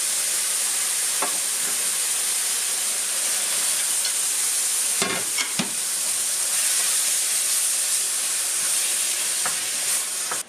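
Canned tomatoes sizzling in a hot frying pan of fried onions and curry paste just after deglazing: a steady hiss of frying. A wooden spatula stirs the pan, with a few knocks against it, most around five seconds in.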